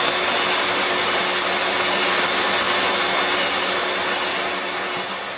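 A train running: a loud, steady rushing noise with a low hum under it, easing off slightly near the end.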